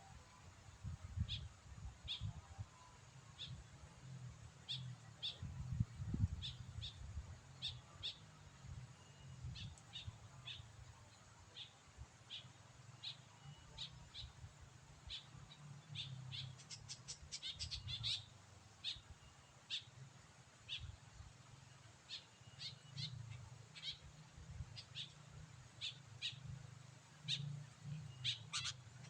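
Sooty-headed bulbul (kutilang) chirping: short, high, sharp notes about twice a second, breaking into quick runs of rapid notes twice, over a faint low rumble.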